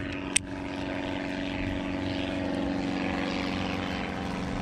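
An airplane flying overhead: a steady engine drone. A single sharp click sounds about half a second in.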